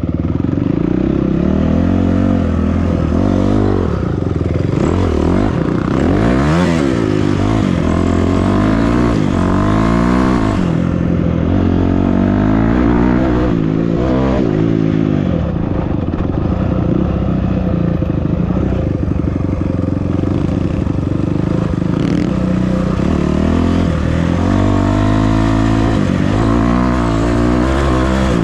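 Engine of an off-road vehicle being ridden over rough ground, revs rising and falling again and again.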